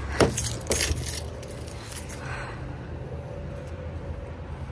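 A car door being opened: two sharp metallic clinks in the first second as the handle is pulled and the latch releases, then a steady low hum.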